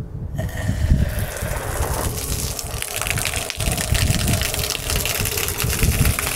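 Water gushing out of an opened outlet on a rooftop solar hot-water line, a spraying jet splashing onto concrete. It starts about a third of a second in and keeps running steadily.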